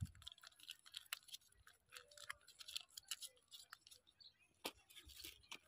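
Faint scattered clicks and crinkles from small plastic sachets of paste being squeezed and torn open by hand.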